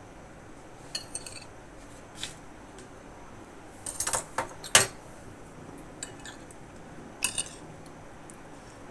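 A metal knife and spoon clicking and scraping against a ceramic plate while cutting set jelly into cubes: scattered short clinks, the loudest about five seconds in.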